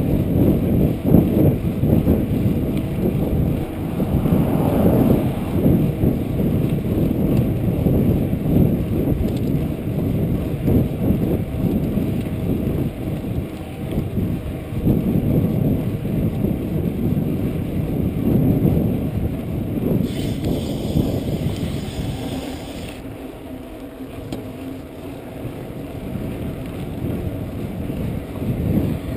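Wind buffeting the microphone of a chest-mounted action camera on a moving mountain bike, with the rumble of the tyres on pavement. The rumble eases for a few seconds past the middle, after a brief higher hiss.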